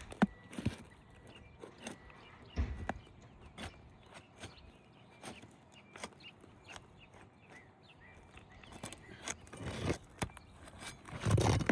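Scattered taps, knocks and scrapes of hand work on asphalt shingles as a damaged shingle is worked loose for removal, with a longer, louder stretch of scraping and rustling near the end.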